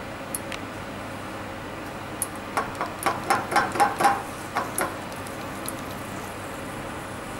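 A silicone spoon stirring dark caramel in a stainless-steel saucepan, knocking and scraping against the pan about a dozen times in quick succession around the middle. A steady background hiss runs underneath.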